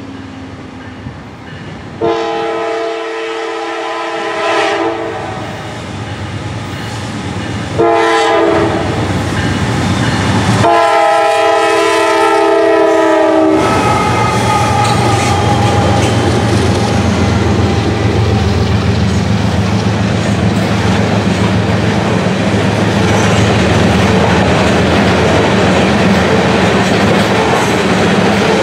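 Norfolk Southern GE D9-40CW locomotive's multi-note air horn sounds three times: long, short, then long, the last held as the train arrives. The diesel locomotives then run past with a low engine drone, and covered hopper cars follow with a steady rumble and clickety-clack of wheels on the rails.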